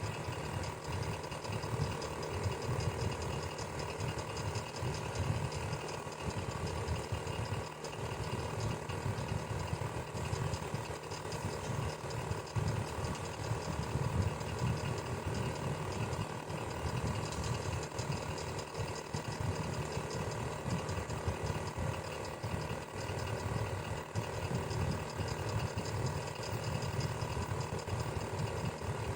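Electric fan running steadily: a constant low hum of motor and blades with a fine flutter, unchanging throughout.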